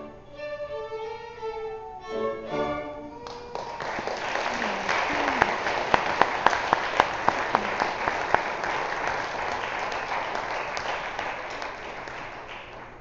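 A violin plays the last few notes of a tune, then about three seconds in an audience breaks into applause that gradually dies away.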